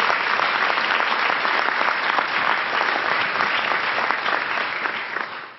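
Large audience applauding, many hands clapping at once, dying away near the end.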